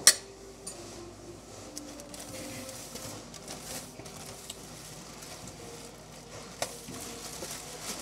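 A sharp knock at the very start, then crinkling and rustling of a plastic bread bag as a bagged loaf is handled, with a single small click about six and a half seconds in.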